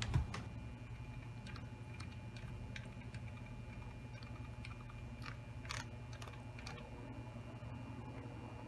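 1948 Emerson Electric 77648-AO oscillating table fan running on low speed with its oscillation engaged: a steady low motor hum with light, irregular clicks.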